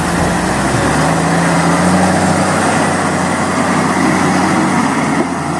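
Construction vehicle engine running steadily.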